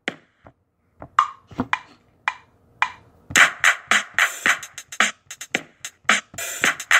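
A percussive beat without vocals: sharp, evenly spaced hits that stop for about a second at the start, come back as a few scattered strikes, then pick up again as a fast steady pattern a little over three seconds in.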